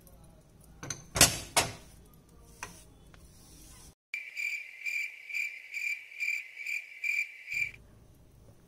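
Two sharp knocks about a second in, as the glass gas hob is wiped down, then cricket chirping, a steady high chirp pulsing about two to three times a second over otherwise dead silence, stopping shortly before the end.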